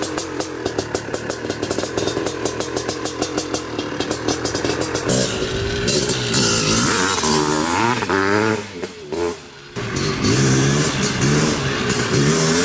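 Honda CR500 two-stroke single-cylinder dirt bike engine idling with a regular pulsing beat, then revved hard from about five seconds in, its pitch climbing and falling as the bike pulls away. The engine sound drops away briefly near nine seconds, then revs up again.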